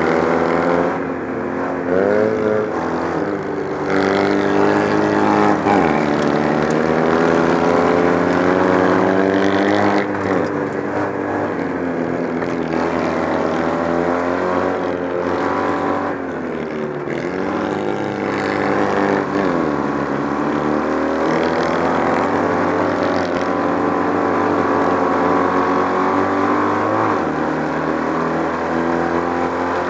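Kart cross buggy's Citroën 2CV 602 cc air-cooled flat-twin engine at racing speed, heard from the cockpit. The revs climb and fall again and again as the throttle is opened on the straights and lifted for the corners.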